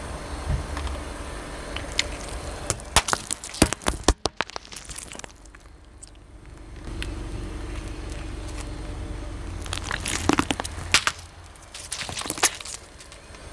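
Car tyre rolling over and crushing mesh squishy stress balls, giving sharp cracks and crackles in two clusters, about three seconds in and again around ten to twelve seconds, with a low rumble from the car between them.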